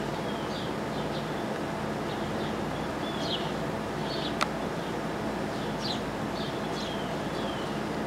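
Sparrows chirping: short, high, falling chirps repeated irregularly throughout, over a steady low hum. A single sharp click a little past the middle.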